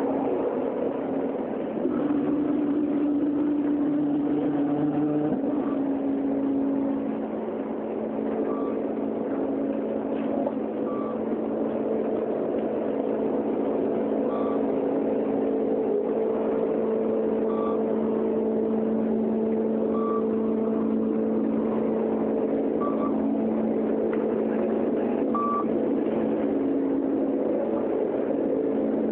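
City bus engine running with a steady drone while passengers board, and a short high beep every two to three seconds.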